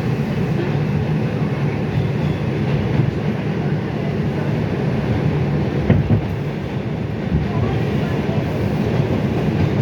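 Inside an R142 subway car at express speed: a steady rumble of wheels on rail, with a few sharp knocks from rail joints.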